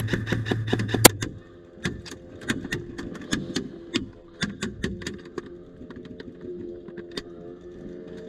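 Airsoft guns firing: a quick run of sharp clicking shots in the first second, then scattered single shots.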